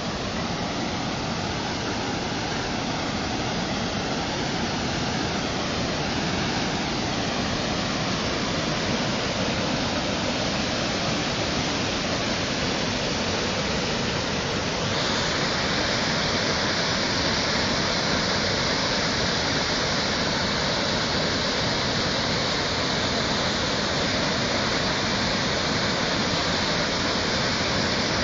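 Floodwater of Stringybark Creek rushing and churning in rapids over a washed-out bike path, a steady rushing noise that grows brighter and a little louder about halfway through.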